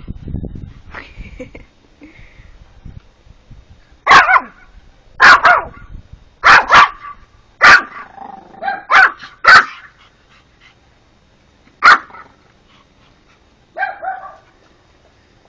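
Pomapoo puppy barking at a praying mantis: about ten short, sharp barks at uneven intervals, starting about four seconds in, some coming in quick pairs.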